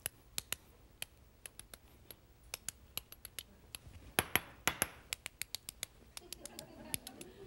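Hard-boiled eggshells being tapped and cracked against a wooden cutting board: a quick, irregular run of light clicks, with two longer crackling crunches about four seconds in as an egg is pressed and rolled under the palm.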